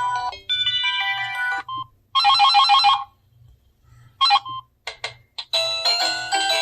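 Samsung SGH-T309 phone playing short previews of its built-in ringtones through its small speaker, each cut off as the next starts. There is a chiming melody, then a rapid ringing trill about two seconds in, then a few brief blips and clicks, then a new melody starting just past halfway.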